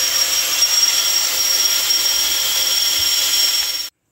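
Steady whirring hiss of a small electric motor or blower with a thin high-pitched whine, cut off suddenly just before the end.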